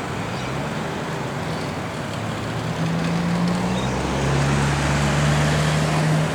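Road traffic noise, with a vehicle engine hum coming in about three seconds in and growing louder.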